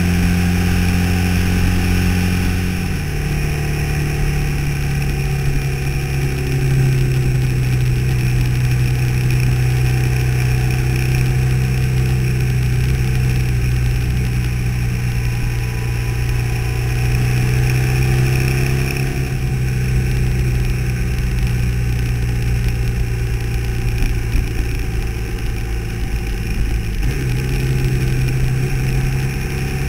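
Motorcycle engine running steadily at cruising speed along a winding road. Its note shifts in pitch a few times as the throttle or gear changes.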